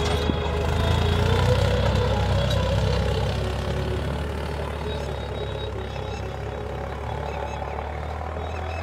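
Tractor engine running steadily while ploughing, loudest a second or two in and then slowly fading as it moves away.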